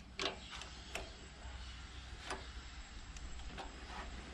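Several faint, scattered metallic clicks and taps, a second or so apart, as hand tools such as an Allen key and spanners are handled against the throttle linkage and set down.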